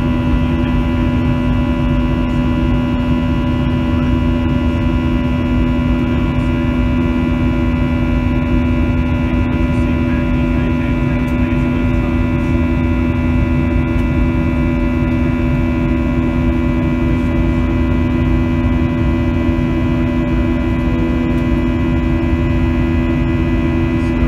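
Cabin noise of a Boeing 737-700 in flight, heard from a seat over the wing: the CFM56-7B jet engines and the airflow make a steady drone, a low rumble under a hum of several unchanging tones.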